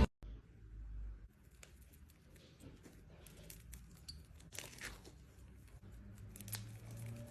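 Faint, scattered crackles and brief scratchy tearing-like sounds over a low hum, as of something being handled close to the microphone.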